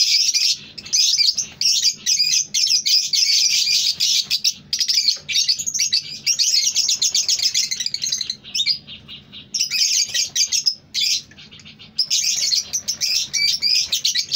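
Many caged lovebirds chattering together in a dense, shrill, continuous twittering, broken by two brief lulls in the second half.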